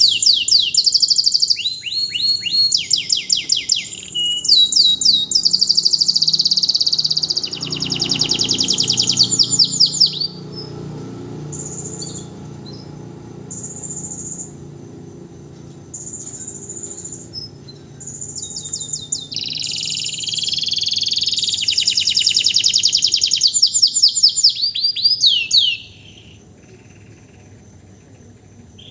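Domestic canary in full song after its moult: long runs of fast, high trills and rapidly repeated sweeping chirps, with a quieter middle stretch of short, steady high notes. The song stops about three-quarters of the way through.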